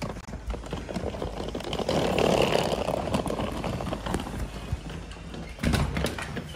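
Wheeled suitcase rolling over paving tiles, a dense rumbling rattle that swells a couple of seconds in and then eases, with a sharp knock near the end.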